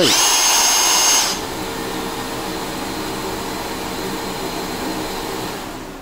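A Makita XGT 40 V cordless power tool's motor spins up at once to a high steady whine and is released after just over a second. The Makita VC004GL XGT vacuum, switched on automatically by the tool in auto-start mode, keeps running with a lower steady hum for a few seconds and then begins to wind down near the end.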